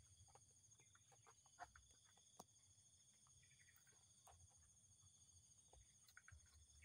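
Near silence: faint outdoor background with a steady high-pitched whine and scattered faint ticks and short chirps.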